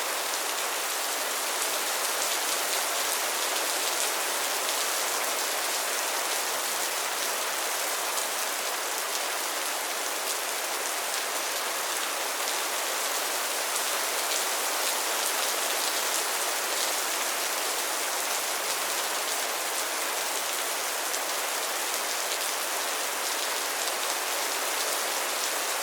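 Heavy rain falling steadily on a surface, a dense even hiss of many drops with no music.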